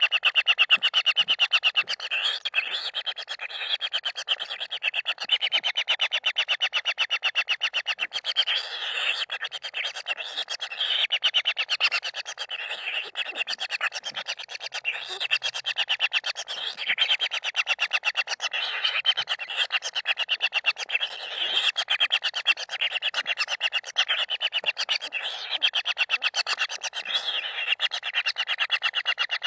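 Common kingfisher chicks calling continuously from the nest: a fast, rattling stream of pulses with no pauses, the chicks' begging calls for food.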